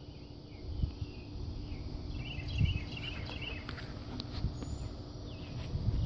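Insects chirping outdoors, with a short run of quick chirps about two to three seconds in. Soft low bumps come from the handheld phone being moved.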